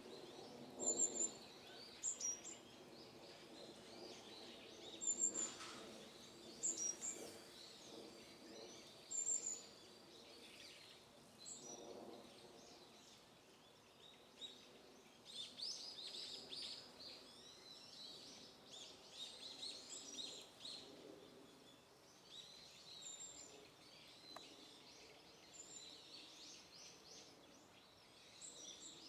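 Small songbirds calling: short, very high, thin notes repeated every few seconds, with a stretch of busier twittering about halfway through. The calls are faint over a light background hiss.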